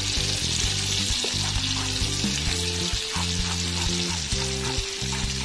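Butter, shallots, garlic and sliced sausage sizzling in a frying pan as strained tomato juice runs into the hot fat. Background music with held low notes plays underneath.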